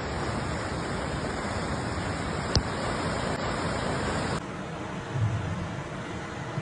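Steady rushing noise of fast-moving floodwater, with one sharp click about two and a half seconds in. A little past four seconds the sound cuts to a quieter, lower rumble.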